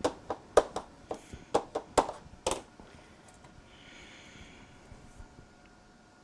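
Hands working with paper and tools on a craft desk: about ten sharp clicks and taps in quick succession over the first two and a half seconds, then a faint soft rustle.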